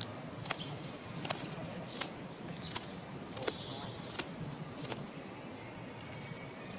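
Outdoor ambience with a steady low rumble and sharp clicks repeating about once every three-quarters of a second.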